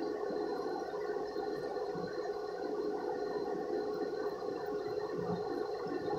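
A steady hum of several held tones, with faint mouth sounds as a man eats and drinks from a glass.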